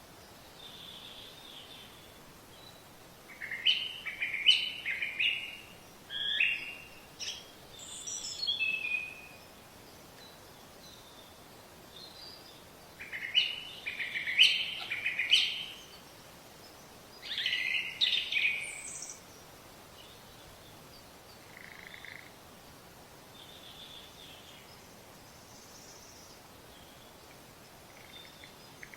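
A songbird singing in several bursts of quick, repeated chirping notes, most of them in the first two-thirds, over a faint steady background hiss.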